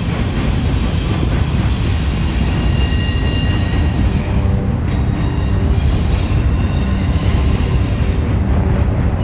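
Union Pacific intermodal stack train rolling past: a loud, steady rumble of wheels on rail, with several thin, high-pitched wheel squeals that come and go.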